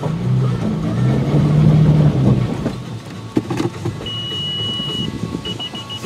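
Car engine running, with a couple of clicks about three and a half seconds in, then an electronic beep: one long high tone of about a second, followed by quick repeated beeps.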